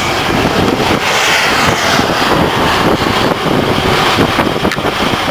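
Freightliner Century Class semi truck under way, heard from inside the cab: a steady rush of engine, road and wind noise with an uneven, buffeting low end.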